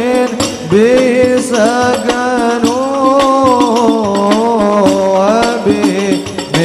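Al Banjari sholawat performance: a male lead voice sings a long, wavering Arabic melody, accompanied by banjari frame drums beating a steady rhythm.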